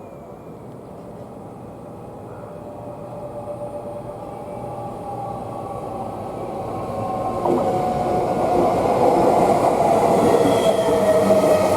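Electric commuter train approaching and running into the station, growing steadily louder. A whining tone falls slowly in pitch as it comes in.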